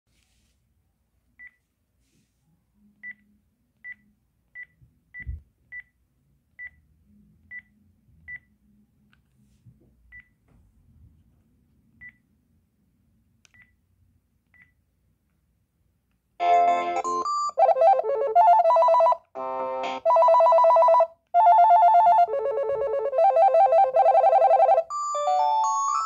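Panasonic cordless phone handset: about a dozen short high beeps from its keypad as the menu is stepped through, with faint handling noise. Then, from about 16 seconds in, a loud electronic ringer tone plays through the handset, a multi-note melody in repeating phrases with short breaks, changing to a different tone near the end.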